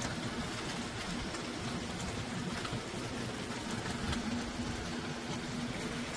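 Eel fat sizzling between the hot plates of a closed commercial waffle press, a steady hiss over a low steady hum.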